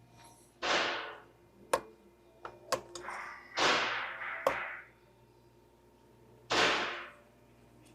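Work sounds of parts being removed from a car: a few sharp clicks and knocks, and three short bursts of rushing, hissing noise, each fading out within about half a second.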